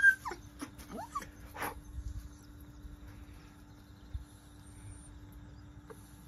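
A ginger-and-white cat giving a sharp chirp and a couple of short rising squeaks in the first second and a half, then only faint background with a steady low hum.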